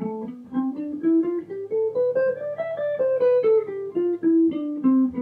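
Semi-hollow electric guitar playing the C major scale from A (A Aeolian) in a two-notes-per-string fingering, single picked notes. The notes climb steadily for about two and a half seconds, then step back down to the starting A.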